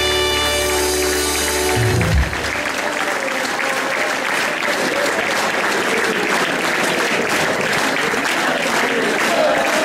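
Music holding a sustained chord that ends about two seconds in, over a crowd clapping; the applause carries on steadily after the music stops.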